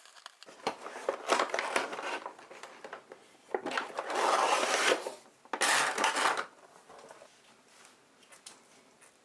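Packaging being handled: plastic and paper rustling and crinkling in three bursts, with small knocks and clicks of items being moved.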